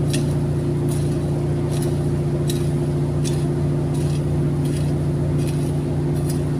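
Hoe (cangkul) blade chopping into soil and grass roots in a steady rhythm, a sharp stroke about every three-quarters of a second. Under it runs a louder steady motor-like hum of unseen source.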